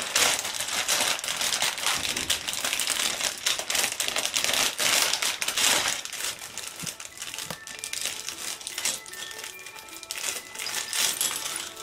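Crinkling of a clear plastic LEGO parts bag being torn open and handled, with small plastic bricks clicking as they spill onto the table. The crinkling is densest in the first six seconds; after that it is quieter, and faint music begins.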